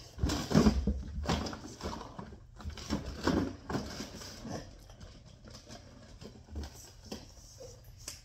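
Irregular taps, knocks and rustles, like small objects being handled and moved. They are busiest and loudest in the first half and grow sparse and faint after about five seconds.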